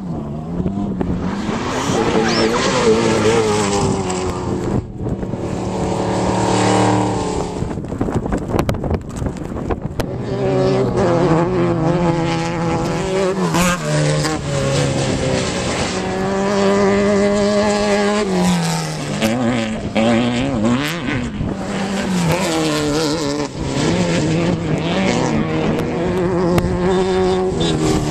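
Off-road race vehicle engines running hard, their pitch climbing and dropping again and again as they rev and change speed, with a falling note about two-thirds of the way through.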